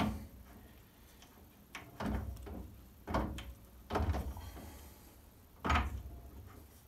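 Cast iron chuck backplate being screwed by hand onto a Myford Super 7 lathe's threaded spindle nose, giving about five short metal clunks and scrapes as it is worked on. It is binding: a bit snug on the register spigot.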